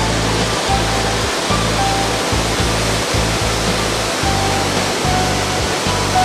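Steady rushing roar of a waterfall, with background music playing over it.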